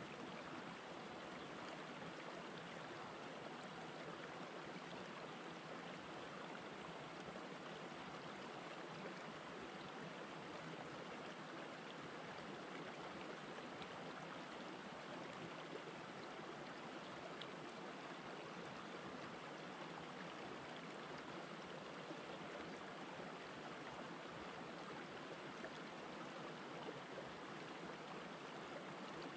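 Shallow, rocky stream flowing between boulders: a steady, quiet rush of water.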